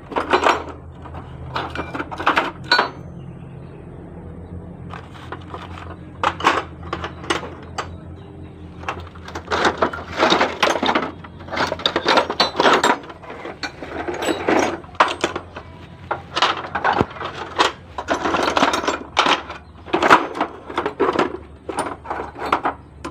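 Metal tools and manual-gearbox parts clinking and clattering in irregular bursts of sharp knocks, over a low steady hum that fades after the first several seconds.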